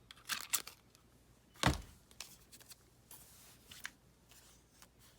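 Paper rustling as scrapbook paper is handled, with one sharp clack about one and a half seconds in from a handheld hole punch being pressed down on it. Faint paper shuffling follows.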